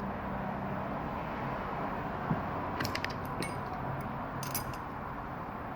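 A few light clicks and small metallic taps from handling a vape's parts and small tools during disassembly, over a steady background hiss.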